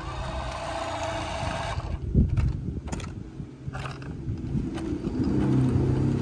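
Small electric motor of a toy RC car running, its wheels spinning on gritty ground while the car is stuck, with a few sharp clicks about two to four seconds in.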